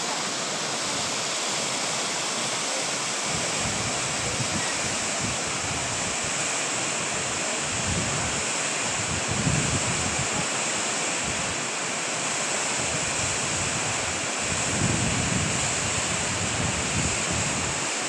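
Waterfall pouring down rock: a steady, even rush of water, with low gusts of wind on the microphone around the middle and again near the end.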